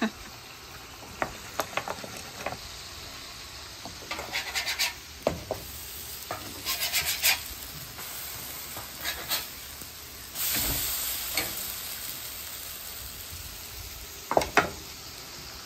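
Cornbread cakes and diced potatoes sizzling in oil on a flat-top griddle, with a metal spatula scraping and clicking against the steel as the cakes are turned. A louder surge of hiss comes about ten seconds in and lasts about a second.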